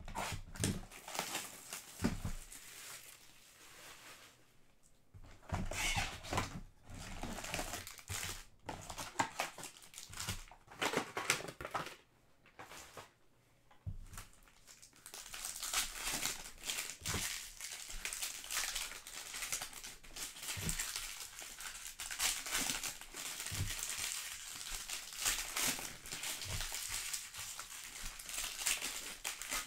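Foil wrappers of Panini Select soccer card packs crinkling and tearing as the packs are handled and ripped open. The crinkling comes in irregular stretches, with a short lull about halfway and a few soft thumps.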